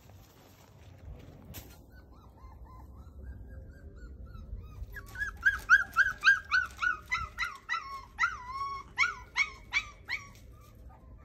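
Puppy crying: a few faint whines, then about halfway through a rapid run of short, high-pitched yelps, each sliding down in pitch, two or three a second for about five seconds.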